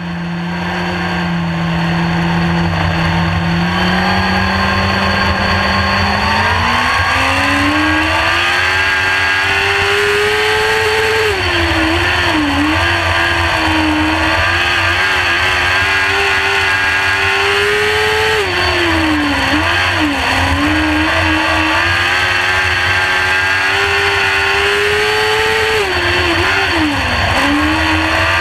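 Sprint car engine heard from the cockpit under race power. It holds a low, steady note, climbs about six seconds in, then dips and picks up again three times, once each lap, as the driver lifts for the corners of the dirt oval.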